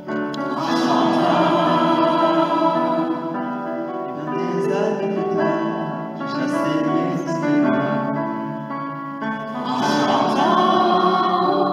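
Choir singing in sustained phrases, with a male lead voice sung into a microphone at the front.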